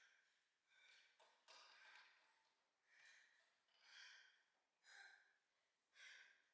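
Very faint breathing: breaths in and out at about one a second, each swelling and fading.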